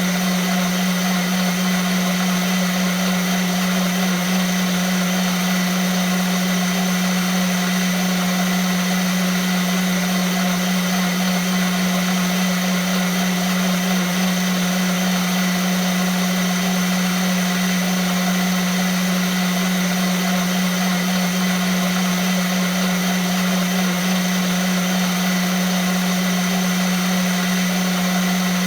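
Vitamix blender running steadily at constant speed, a loud even motor whine with a strong low hum and a hiss of whirling blades.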